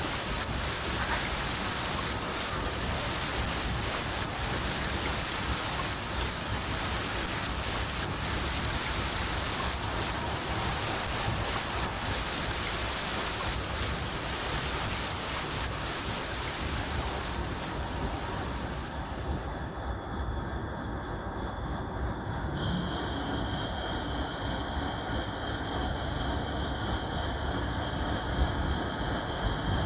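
Crickets chirping in a steady, fast, regular rhythm of high-pitched pulses, over a hiss of rain that fades out about two-thirds of the way through.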